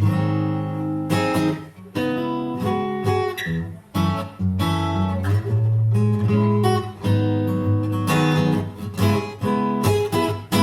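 Sigma DM15 dreadnought acoustic guitar played unplugged: chords strummed and left to ring, changing every second or two.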